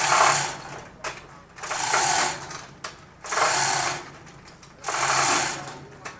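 Mechanical clatter from a MAKTANI MT212 rice milling machine, coming in short bursts under a second long about every one and a half seconds, with a low hum inside each burst.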